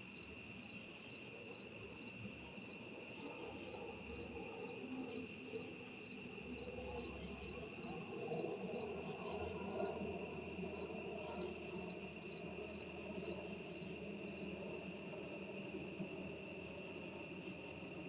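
Night insects calling. One gives short, high chirps in a steady rhythm of about three a second, then falls silent about three-quarters of the way through. Under it runs a continuous, steady high trill from others.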